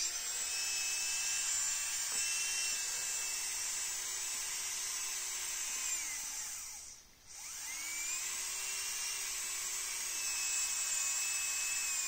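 STRONG 105L manicure handpiece motor running at speed with a steady high whine, its bearing freshly lubricated and adjusted. About six seconds in it winds down almost to a stop, then spins back up to the same speed.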